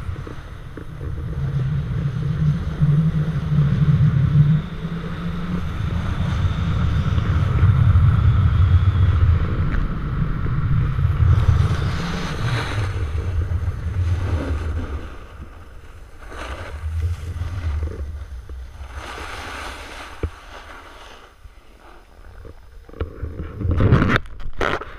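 Wind buffeting the action camera's microphone while skiing fast downhill, a heavy rumble that eases off after about fifteen seconds as the skier slows. A short loud burst of handling noise comes near the end.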